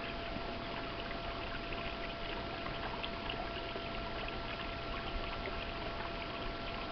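Steady trickle of running water, with a faint steady tone beneath it.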